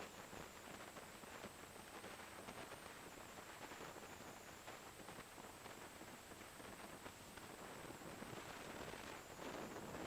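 Faint wind rush and road noise on a motorcycle-mounted camera's microphone while riding, a steady hiss broken by frequent small crackles.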